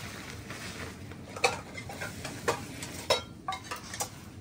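Cookware and utensils clinking and knocking while food is cooked in a pan: about five short sharp knocks spread over three seconds, over a low steady background noise.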